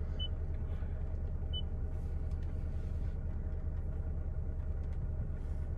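Steady low rumble of a Toyota Fortuner idling, heard inside the cabin. Two short high beeps from the infotainment touchscreen sound about a quarter second and a second and a half in.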